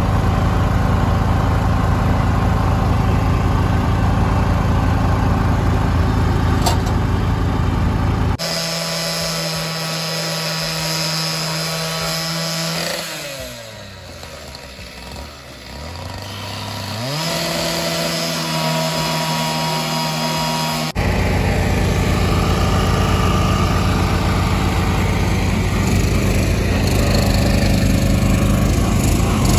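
Small petrol engines running: a steady low engine drone breaks off abruptly and gives way to a higher single engine note, which sags in pitch and loudness for a few seconds and then picks up again. The low drone returns abruptly about two-thirds of the way through.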